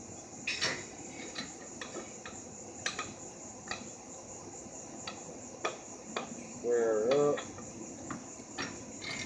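Scattered metal clicks and clanks of parts and hand tools as a wheelbarrow's wheel and axle brackets are fitted, over a steady high-pitched whine. A brief, louder pitched sound comes about seven seconds in.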